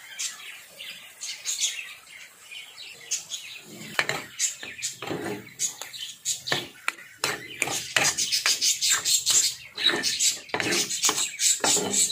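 Steel spatulas scraping and knocking on a cast-iron tawa as the pav bhaji vegetable mixture is mashed and mixed, in quick irregular strokes starting about four seconds in. Birds chirp faintly in the first few seconds.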